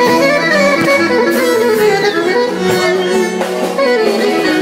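Live band playing an instrumental passage of a Greek popular song between sung lines, with a melody line over strummed strings.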